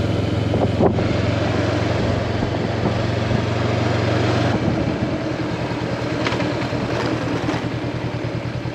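Honda CB500X's 471 cc parallel-twin engine running steadily under way. About halfway through, the engine note drops to a slower, pulsing beat, with a few light clicks near the end.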